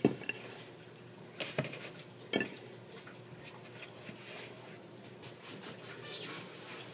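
Raw pork steaks being laid by hand into teriyaki marinade in a plastic bowl: a few light knocks against the bowl in the first couple of seconds, then faint handling noise.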